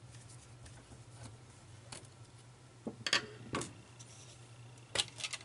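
Sharp clicks and light metallic taps as the thin sheet-metal bottom cover of a CD-ROM drive is handled and worked loose. They come in a few small clusters, the loudest about three seconds in and near the end, over a steady low hum.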